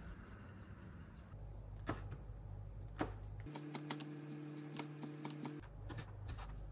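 Kitchen knife slicing green onion on a wooden cutting board: a run of quick, light taps of the blade against the board. A steady low hum sounds under the middle of it for about two seconds.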